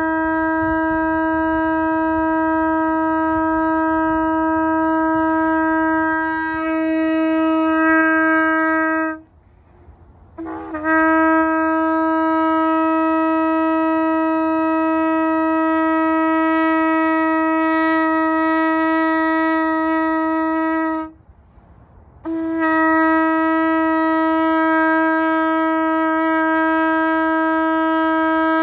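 Shofar blown in long, steady blasts on a single pitch: one held until about nine seconds in, a second lasting about ten seconds, and a third starting a second later. Each new blast opens with a short upward slide into the note.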